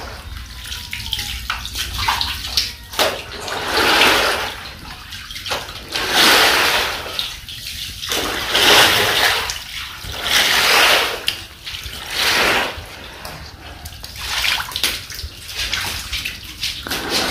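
Shallow floodwater sloshing and splashing as a cloth is pushed in sweeps across a concrete floor, one swoosh about every two seconds.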